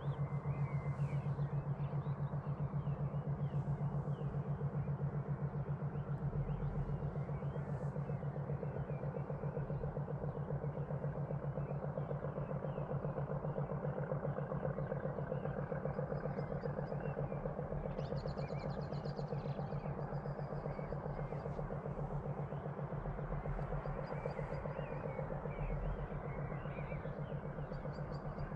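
Distant Class 50 diesel locomotive, its English Electric 16-cylinder engine a steady low drone with a fast, even throb, fading slightly. Faint bird chirps come in over it in the second half.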